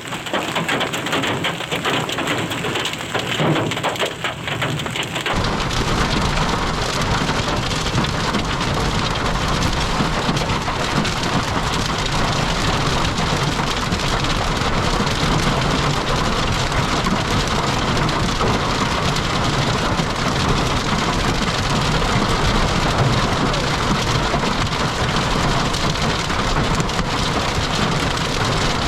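Heavy rain in a severe thunderstorm: a dense patter of striking drops, which changes abruptly about five seconds in to an even, steady roar of rain and wind.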